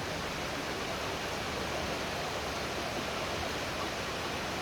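Waterfall water rushing in a steady, unbroken roar.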